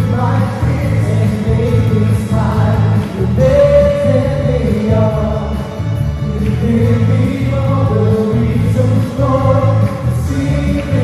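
Live praise band playing a worship song: a group of singers sings together over electric bass guitar and keyboard.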